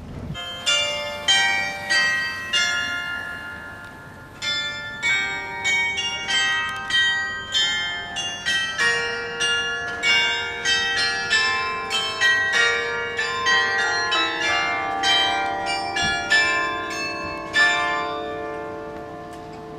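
Tower carillon playing a melody: a run of struck bell notes at changing pitches, a few a second, each ringing on and fading, with a short pause about three seconds in.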